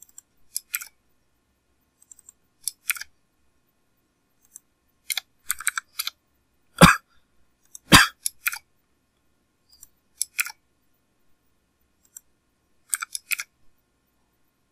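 Computer keyboard keystrokes typed in short, scattered groups, with two louder key strikes about seven and eight seconds in.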